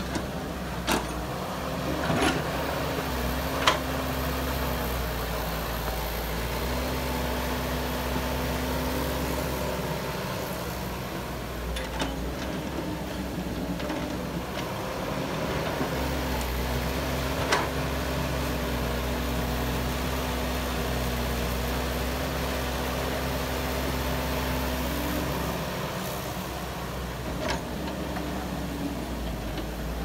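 CAT hydraulic excavator's diesel engine running steadily, its pitch stepping up and down with hydraulic load as it digs and swings. A few sharp knocks, most of them in the first few seconds, as loads of dirt drop into the steel bed of a dump truck.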